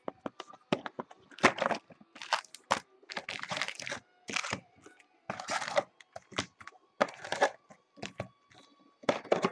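A sealed trading-card box being torn open, its wrapping and cardboard ripping and crinkling in an irregular run of crackling tears and small clicks.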